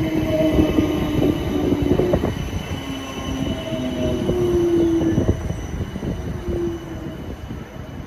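A South Western Railway train running through the station: a low rumble with repeated clicks from the wheels over the rail joints, and intermittent squealing tones from the wheels that come and go and shift in pitch.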